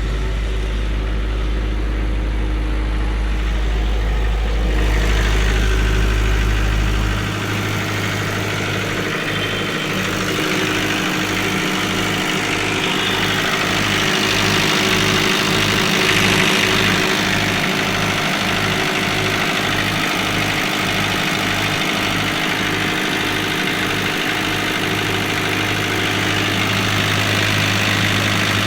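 Isuzu C240 four-cylinder diesel engine running at idle. About seven seconds in, its low hum changes and a regular pulsing beat of roughly two a second sets in.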